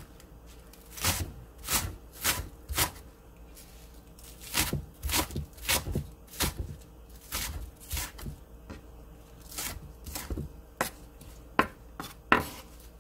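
Chef's knife slicing a stalk of green onion on a wooden cutting board: crisp knocks as the blade cuts through onto the board, about one or two a second, with a short pause about three seconds in.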